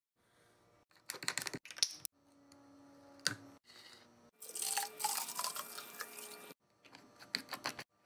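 Milk poured from a plastic jug into a glass carafe: a pouring stream lasting about two seconds whose pitch rises as the carafe fills. Before it come handling clicks and a knock of the glass carafe set down on the granite counter, and a few small clicks follow near the end.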